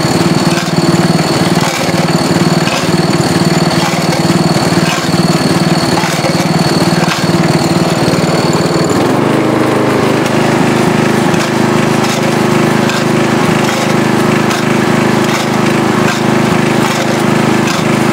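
Riding lawn tractor engine running steadily, with a regular clatter from square nuts tumbling inside a rusty Briggs & Stratton WI engine part taped to a jacked-up rear wheel, a homemade tumbler scouring out the rust. About nine seconds in the engine note changes, a high whine stops, and the clatter grows busier.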